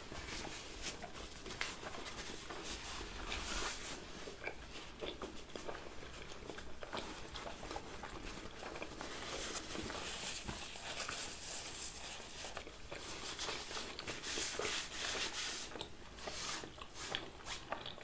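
Close-miked chewing and mouth sounds of people eating pizza: small wet clicks and smacks. A paper napkin rustles against the mouth around the middle.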